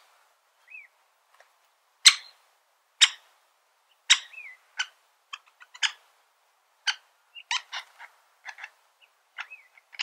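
Great spotted woodpecker giving a series of single sharp, short 'kik' calls, irregularly spaced and sometimes in quick pairs, with a few faint slurred notes between them.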